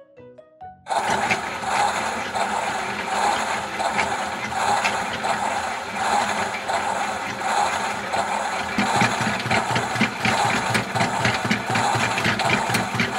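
Toy washing machine running its wash cycle: a small motor whirring with the drum rattling, starting about a second in. The rattle grows busier and deeper over the second half.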